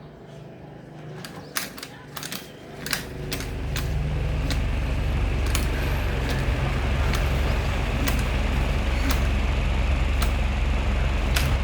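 Mini ceiling fan's electric motor spinning up about three seconds in and then running with a steady low hum, with sharp clicks about once a second.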